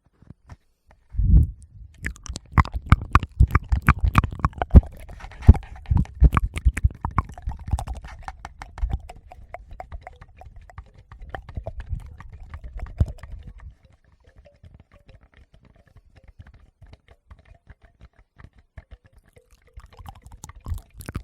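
Close-miked ASMR mouth sounds: dense wet clicks and smacks over low thumps and rumble on the microphone. They thin to sparse faint clicks about two-thirds of the way in and pick up again near the end.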